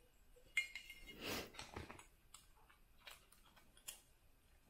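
Small metal clicks and clinks as Phillips screws are worked out of the laser module's aluminium side panel and handled, with a sharp click about half a second in and a brief scrape just after.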